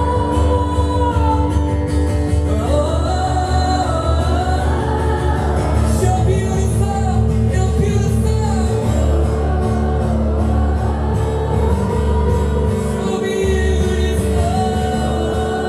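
Worship music during a church service: a sung melody over long held chords and a steady bass line.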